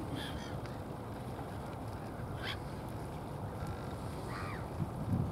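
Steady low wind rumble on the microphone with a few faint, distant bird calls, the clearest an arched call about four seconds in.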